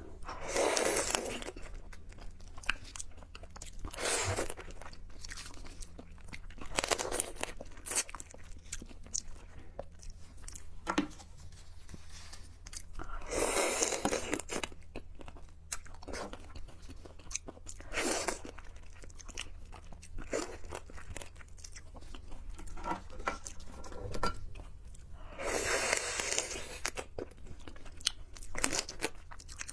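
A person eating close to the microphone: crunching, biting and chewing, with many small clicks and several louder crunching stretches of a second or two every few seconds.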